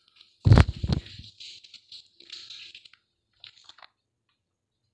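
Handling noise: a heavy thump about half a second in, then a few short crinkly rustles, as of a plastic-covered book and the phone filming it being moved.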